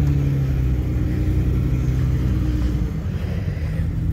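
Jeep engine running steadily, a low drone that eases a little about three seconds in.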